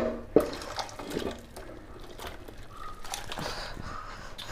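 Thick chicken kurma being poured from a pressure-cooker pan into a clay pot. There are sharp knocks at the start and about half a second in, then smaller clinks and scrapes of the pan against the pot.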